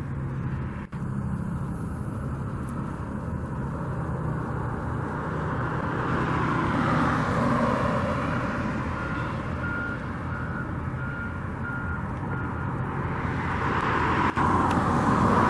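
Backup alarm of a construction vehicle beeping, about two beeps a second, for a few seconds midway, over a steady hum of engines and traffic.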